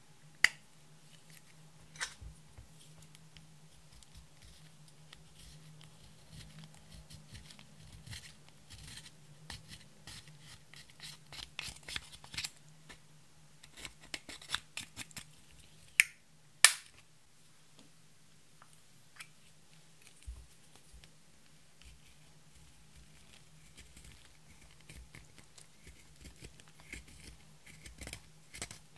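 Pressed eyeshadow scraped and crumbled out of plastic compacts with a plastic tool: dense scratchy crackling in stretches, with a few sharp, loud clicks.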